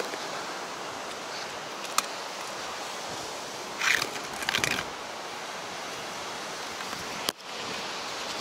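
Steady noise of surf breaking on the beach. A sharp tap comes about two seconds in, a short burst of clattering around four seconds, and a sharp knock near the end as a telescoping pole is handled against a wooden box.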